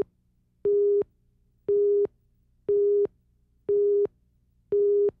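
Countdown leader beeps on a TV news tape: one short, steady beep each second, five times, marking off the seconds of the countdown slate.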